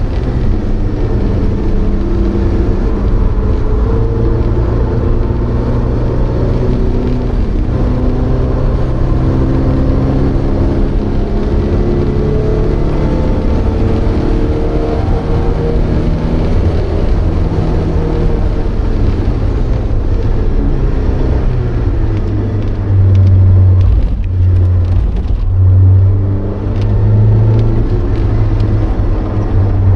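Porsche 924's 2.0-litre, 125 hp four-cylinder engine heard from inside the car at racing speed, its revs rising and falling repeatedly through the gears. About 23 seconds in there are a few seconds of louder low drone.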